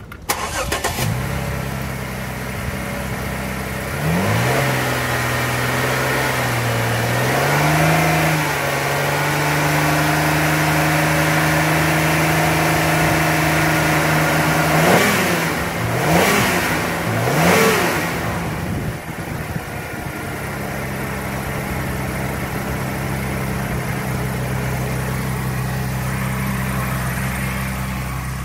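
Holden Captiva 3.2-litre Alloytec V6 starting up and idling. Its revs are raised and held for several seconds, then it is blipped three times in quick succession and settles back to a steady idle.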